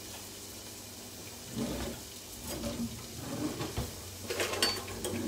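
Onions sizzling gently in oil in a pan, with irregular knocks and clatter of handling starting about a second and a half in.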